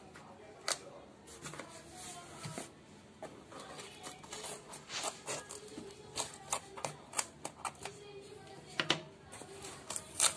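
Scissors snipping and cutting through packing tape on a cardboard shipping box, with the cardboard clicking and crackling as it is handled. Sharp snips and clicks come irregularly, more often in the second half.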